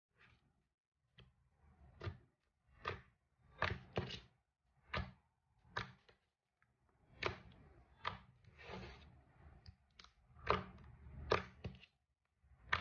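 Slime being squeezed and poked by hand: a string of short sticky pops and crackles, roughly one a second, with softer squishing between them.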